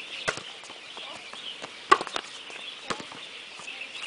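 Volleyball being passed back and forth: sharp slaps of forearms and hands on the ball, three main hits about one to one and a half seconds apart, the middle one the loudest.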